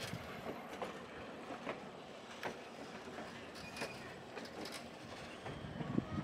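Vintage passenger coaches rolling slowly past on jointed track, wheels and trucks giving scattered clicks and knocks over a steady rolling noise, with a heavier clunk near the end.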